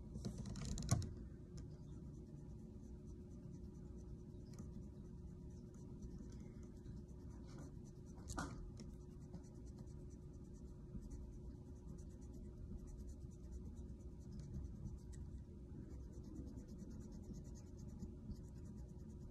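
Wet pencil eraser rubbing gently and repeatedly over a painted plastic model part, a faint scratchy rubbing as the top paint coat is worked off over a hairspray layer to make chipping. Two brief louder knocks of handling, about a second in and near the middle.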